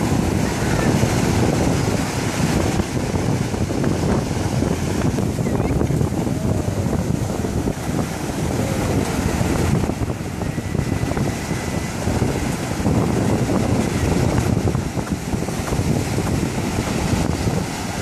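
Ocean surf breaking and washing through shallow water, a steady rushing with small surges, mixed with wind buffeting the microphone.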